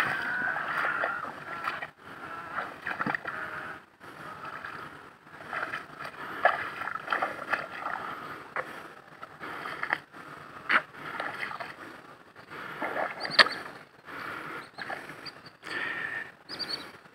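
Sloshing and splashing of a person wading through shallow water over soft mud, with a few sharper splashes, the loudest about two-thirds of the way through.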